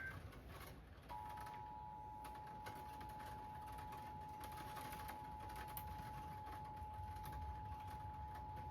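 Emergency Alert System attention signal: two steady tones sounded together (853 and 960 Hz) start about a second in and hold for about eight seconds, announcing an emergency alert broadcast. Short clicks sound throughout.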